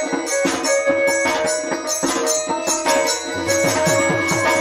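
Odia folk dance music without singing: a two-headed barrel drum played by hand in quick strokes, over jingling percussion and a sustained melody line. From about three seconds in, the drum's bass strokes come several a second and bend down in pitch.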